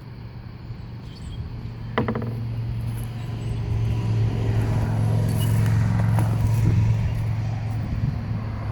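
A steady low mechanical hum that grows louder over several seconds and then eases off near the end, with a single sharp knock about two seconds in.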